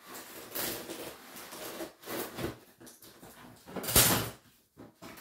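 A cardboard box being cut open and handled: scraping and rustling of cardboard and packing material in several bursts, with one loud, brief thump about four seconds in.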